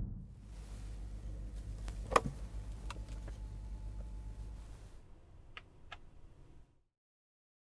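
Low, steady rumble of road noise inside the cabin of a 2022 Mercedes-Maybach S-Class on the move, with one sharp click about two seconds in and two faint ticks near the end. The sound then cuts off abruptly.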